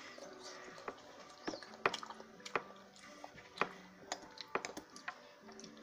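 Chopsticks clicking and scraping against a ceramic bowl at irregular intervals, mixed with wet eating sounds from hot udon noodles being picked up and eaten.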